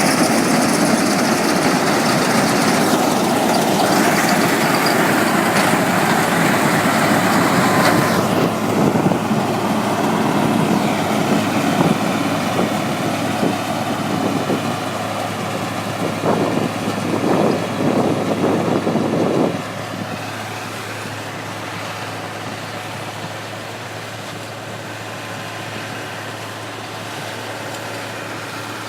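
Combine harvester's diesel engine and machinery running steadily under a constant low hum. It is loud at first, then drops noticeably quieter about two-thirds of the way through.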